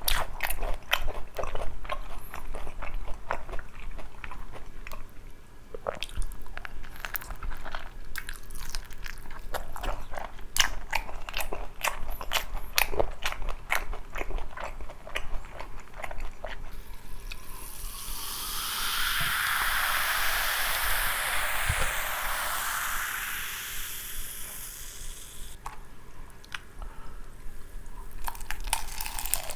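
Close-up crunching bites and chewing of sauced Korean fried chicken, the crisp coating cracking in quick irregular snaps. Just past halfway the crunching gives way to a steady rushing hiss of about eight seconds, then the crunching resumes near the end.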